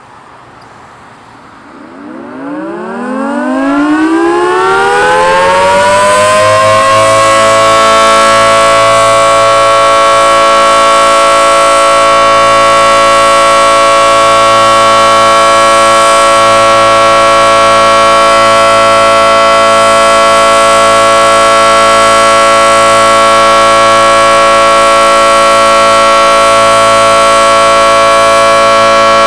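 Outdoor emergency warning siren starting up: it winds up in pitch over about five seconds, then holds a loud, steady wail of several notes at once.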